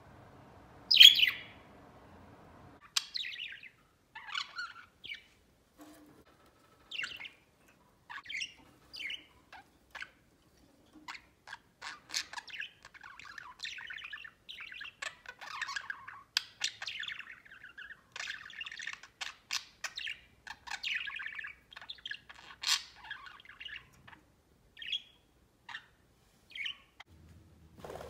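Budgies chirping and warbling: one loud sharp call about a second in, then scattered chirps that run together into a long stretch of busy chatter through the middle, thinning to a few short chirps near the end.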